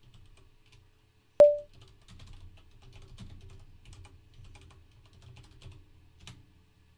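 Typing on a computer keyboard: a run of quick, irregular keystrokes that stops about six seconds in. About a second and a half in, one much louder sharp click with a brief ringing tone stands out.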